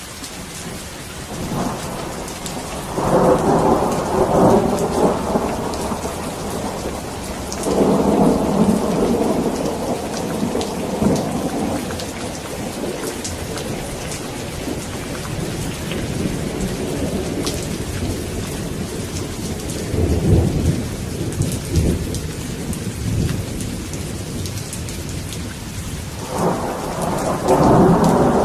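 Steady rain with thunder rolling in four times: a long rumble from about two seconds in, another around eight seconds, a shorter one around twenty seconds, and another swelling near the end.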